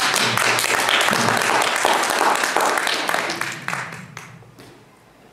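Audience applauding in welcome; the clapping thins out and dies away about four seconds in.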